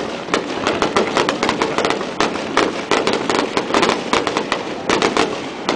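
Aerial fireworks bursting overhead: many sharp, irregular crackling pops from exploding shells and crackle stars, one hard on another, over a continuous low rumble of the bursts.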